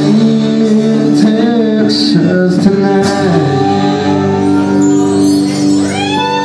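Live band playing electric guitars and drums, with cymbal crashes in the first few seconds, then long held chords as the song comes to its end.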